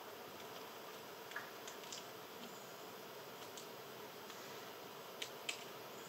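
Faint steady outdoor ambience with a hiss, broken by a few short sharp ticks, the loudest two in quick succession near the end.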